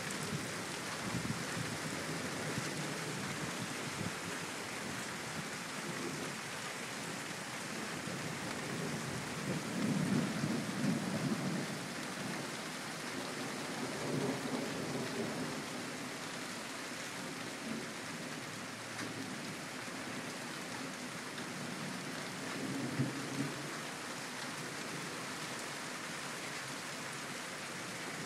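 Steady rain falling, with rolls of thunder rumbling through it: the strongest about ten seconds in, another around fourteen seconds, and a smaller one later on.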